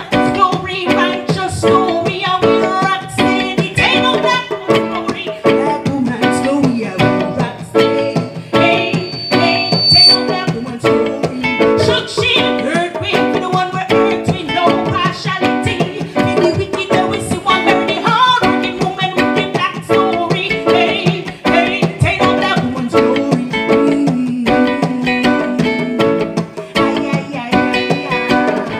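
Live reggae band playing, with an acoustic guitar strumming over drums and a singing voice.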